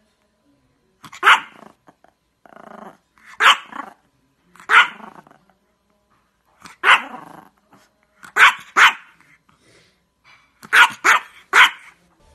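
Yorkshire terrier barking: nine sharp, high yaps, at first a second or two apart, then a quick pair and a quick run of three near the end. A quieter, lower sound comes between barks about two and a half seconds in.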